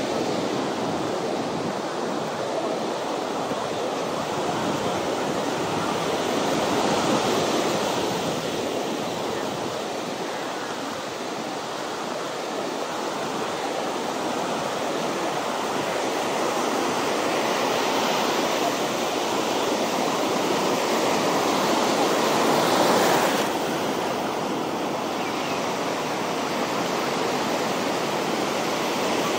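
Ocean surf washing onto a beach: a steady rush of waves that swells and ebbs, loudest about two-thirds of the way through and then dropping away suddenly.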